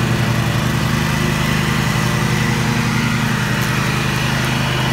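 Cub Cadet riding lawn tractor's engine running steadily while it mows along the sidewalk edge close by.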